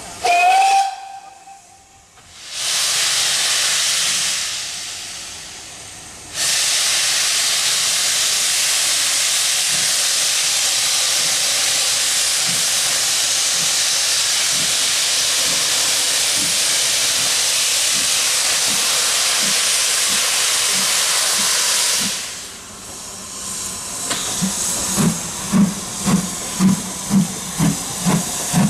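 Steam whistle of the British Railways Western Region 1500 class pannier tank No. 1501, sounded briefly. A long, loud hiss of steam follows, escaping at the front end where the cylinder drain cocks are open as the engine starts away. Near the end the engine's exhaust beats come in at about two a second.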